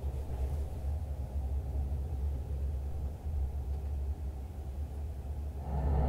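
Deep, steady rumble of a jet aircraft, growing louder near the end as it approaches.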